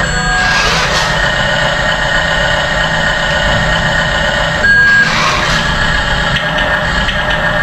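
Steady engine idling sound from an RC toy truck, with a brief high beep about five seconds in.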